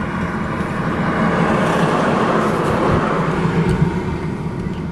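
Semi-trailer truck passing close on a highway, its road and engine noise swelling to a peak about two to three seconds in, then fading.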